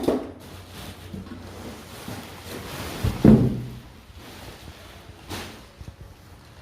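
A few dull knocks and thumps from hard objects being handled. The loudest comes about three seconds in, with a brief hollow ring.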